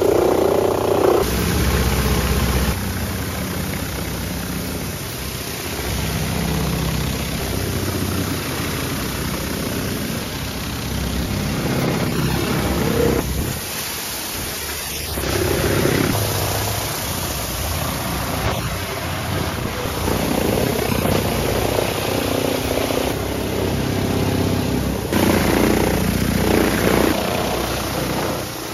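High-pressure water jets from a wheeled undercarriage cleaner's spray deck hissing against a car's underside and the wet pavement, over a low machine drone from the pressure washer.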